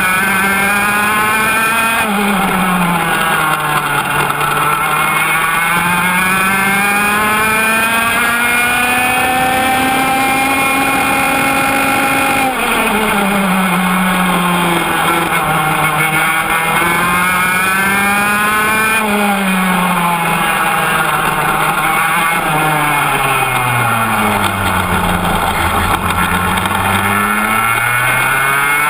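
Air-cooled two-stroke kart engine heard from onboard at full racing use. Its pitch climbs steadily down each straight and drops sharply under braking for the corners, four or five times in all. Near the end the revs fall to a slow, low run for a few seconds before picking up again.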